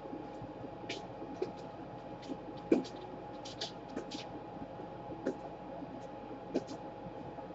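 Small tools and laptop parts being handled during a repair: scattered light clicks and taps, the sharpest about three seconds in, over a steady hum.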